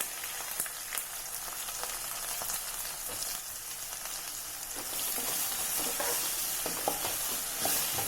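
Hot oil tempering of mustard seeds, curry leaves and chillies sizzling in a kadai as raw mango pieces are added and stirred, with faint clicks of the spoon against the pan. The sizzle grows louder about five seconds in.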